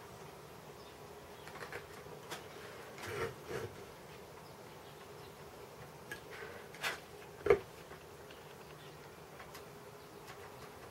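Chip-carving knife cutting into wood: a few short scraping cuts and clicks, the sharpest about halfway through, over a steady buzzing hum.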